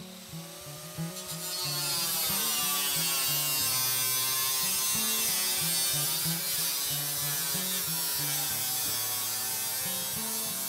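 Corded angle grinder with a cutoff wheel cutting through a metal siding panel: a steady high grinding hiss, the motor's pitch sagging and recovering under load, getting louder about a second and a half in. Background music with a bass line plays underneath.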